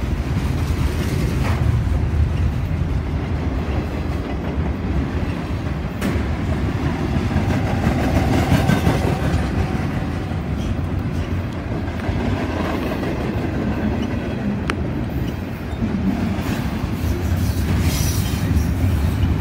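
Double-stack container freight train rolling past at close range: the steady noise of its wheels on the rails, with a few sharp clicks.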